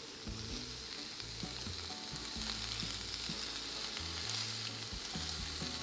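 Seafood sizzling steadily as it fries in a pan over an Iwatani portable butane cassette stove.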